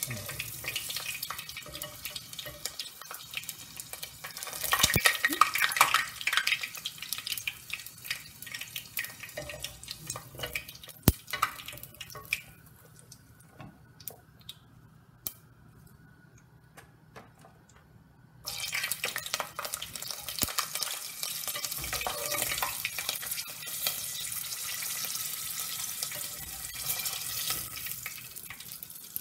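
Hot oil sizzling and crackling in a pot as onions and then green chillies and curry leaves are deep-fried. The sizzle dies down to near quiet partway through, then flares up loud again suddenly as a fresh batch goes into the oil. There is a sharp metal clink of the steel slotted spoon near the middle.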